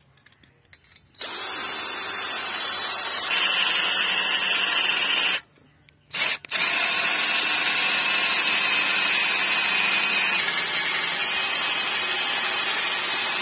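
Electric drill boring a hole through a steel flat bar with a twist bit, running steadily. It starts about a second in, stops briefly about halfway, then runs again.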